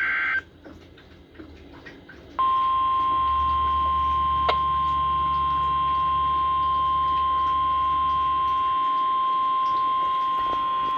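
NOAA Weather Radio alert sequence: the tail of a SAME digital header burst, then after about two seconds the 1050 Hz warning alarm tone, one steady high beep held unbroken. A single sharp click sounds about two seconds into the tone.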